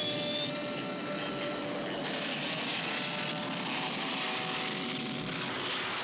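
Jet aircraft engine: a steady rushing jet roar, with a high whine that climbs in pitch over the first two seconds.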